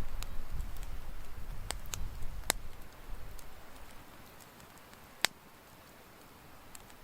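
Low wind rumble on the microphone that dies away over the first three seconds, with a few sharp ticks, the loudest about five seconds in.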